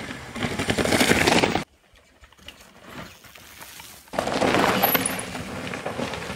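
Mountain bike tyres crunching and tearing over loose dirt and gravel as a downhill rider passes close by, twice, in two loud crackly bursts. The first cuts off suddenly about a second and a half in; the second starts about four seconds in and fades.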